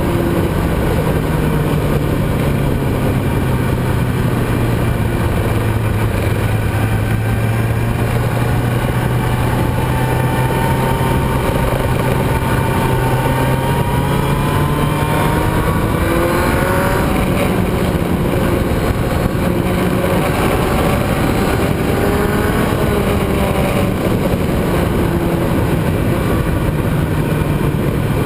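Onboard sound of a motorcycle lapping a racetrack at speed: the engine holds a steady note, then rises and shifts about halfway through, over constant wind rush.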